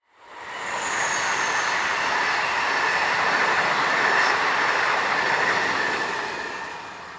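Double-deck passenger train running past at speed: a steady rumble of wheels on rail with a high whine, fading as it draws away near the end.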